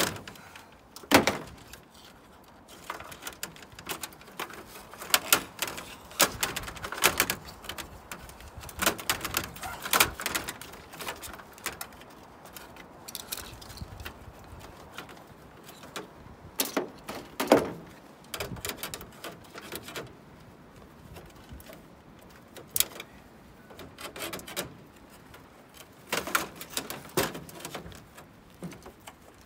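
Gas dryer's sheet-metal front panel and control-panel parts being worked apart by hand: irregular clicks, knocks and rattles as wiring and plastic clips are pulled and pried loose. The sharpest knocks come about a second in and a few more through the middle.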